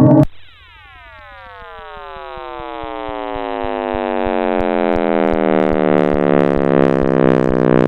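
Synthesized sonification of space data: a loud noisy sound cuts off at the start, then a cluster of many tones slides downward in pitch together, growing steadily louder, with faint low ticks underneath.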